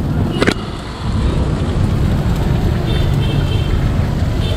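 Steady road traffic rumble, with a sharp click about half a second in.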